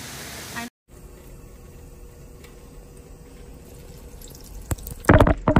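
A thin stream of water pouring and running steadily, faint and even. A sudden loud rush of noise comes in near the end.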